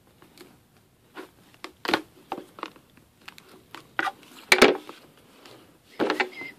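A hobby box of trading cards being opened by hand: cardboard and pack wrapping handled and pulled, giving scattered clicks and short rustles, the loudest about four and a half seconds in.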